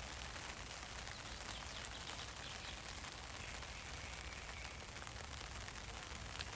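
Rain falling on an umbrella: a steady hiss of many small drop taps, with a few faint bird calls in the middle.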